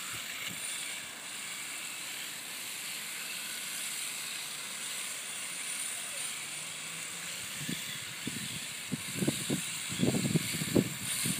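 Two radio-controlled drift cars running and sliding on asphalt, heard as a steady high hiss. Short, irregular low rumbles come in during the last few seconds.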